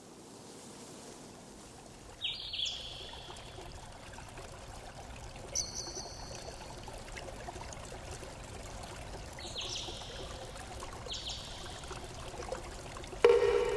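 Steady trickling water with short, high bird chirps every few seconds, and a louder, lower call near the end.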